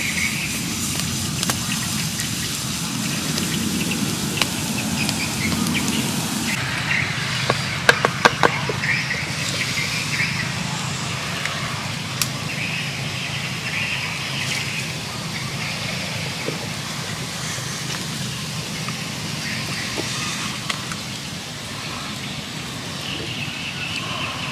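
Wood fire burning under bamboo cooking tubes, a steady low rush for the first few seconds. After that comes a quick cluster of sharp knocks about eight seconds in, over a steady outdoor background.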